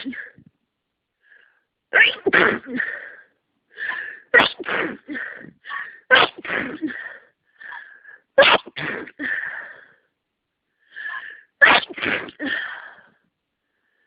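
A person sneezing again and again in a fit, about six sharp sneezes with gasping breaths between them and a short pause before the last pair. The fit comes from a head cold with heavily congested sinuses.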